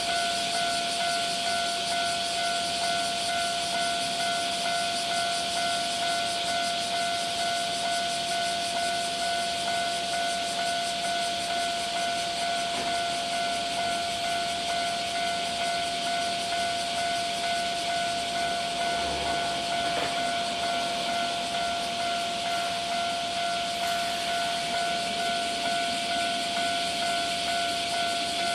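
Japanese railway level-crossing warning alarm ringing on and on in an even, repeating rhythm, a sign that the crossing is closed for an approaching train.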